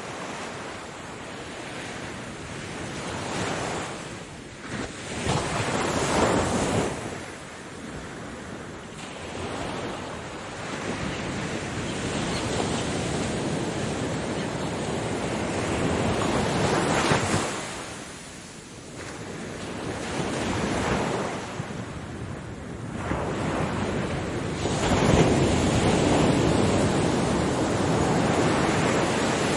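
Ocean waves breaking and washing onto the shore, the surf swelling and ebbing in several surges, with the loudest near the end.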